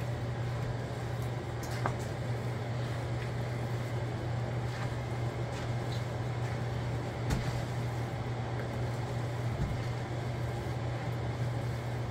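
A steady low hum of a kitchen fan or appliance, with occasional soft scrapes and knocks as a wooden spoon stirs rice in a large aluminium pot.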